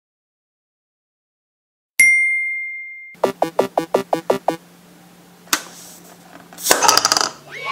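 Cartoon sound effects. After about two seconds of silence, a single bright ding rings out for about a second, followed by a quick run of about nine short pitched notes, a click, and a brief rattling burst near the end.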